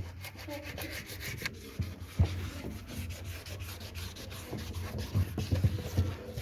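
Small toothbrush scrubbing the plastic parts of an automatic washing machine with soapy water: a run of short, scratchy brushing strokes.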